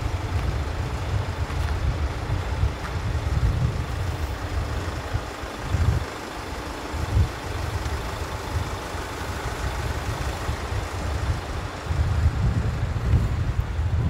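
Wind buffeting the microphone: a low rumble that swells and dips in gusts, easing briefly about six and seven seconds in.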